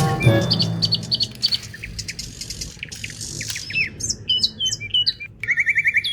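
Birds chirping and tweeting in a series of short, high calls, ending in a quick trill of repeated notes.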